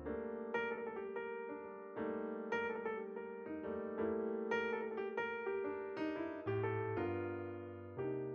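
Background piano music: a gentle melody of struck notes, about two a second, each fading away before the next.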